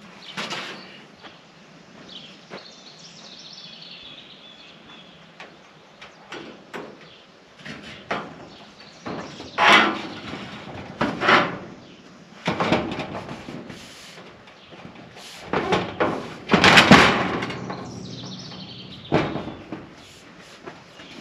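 Long ribbed steel siding panel being handled and set against wooden wall framing, rattling and flexing in several separate bursts, the loudest about 17 seconds in.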